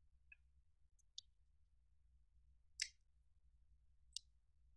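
Near silence broken by four faint, short clicks and squishes, the loudest a little under three seconds in, as slime filling is squeezed out of a cut-open rubber balloon.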